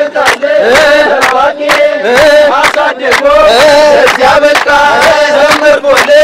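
A crowd of young men and women singing a chant-like song together, clapping their hands in unison about two to three times a second.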